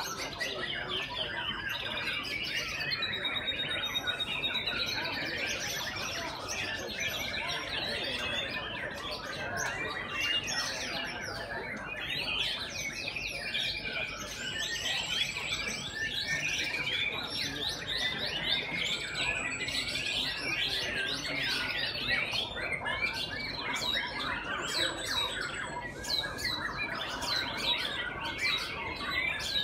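Many caged white-rumped shamas (murai batu) singing at once in competition: a dense chorus of rapid whistled phrases, chirps and trills, with some held high whistles now and then.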